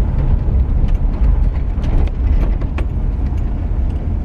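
1984 Pontiac Parisienne station wagon driving on the road: a steady low rumble of engine and road noise, with a few light clicks about two to three seconds in. The engine runs smoothly after a new ignition module.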